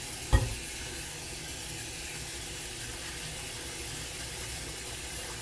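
Kitchen faucet running steadily into a bowl of raisins being rinsed by hand in a stainless-steel sink, an even hiss of water. A single short knock about a third of a second in.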